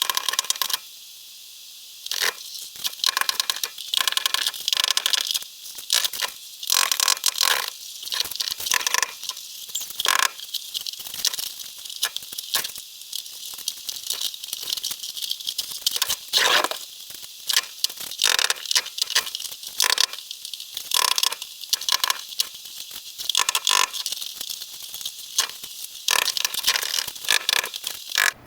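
Hammer striking and chopping Durock cement backer board to break it free around its roofing nails. Quick irregular knocks and rattles, with crumbling debris in between and a short lull about a second in.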